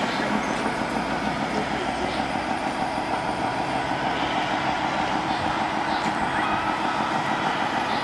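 Steady diesel truck engine sound from the sound module of a scale RC Mercedes-Benz Actros tipper truck as it drives slowly.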